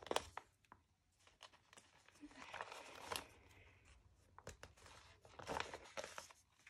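Faint crinkling and rustling of a paper sticker sheet as stickers are peeled off its backing, with scattered small clicks and two louder crinkly stretches.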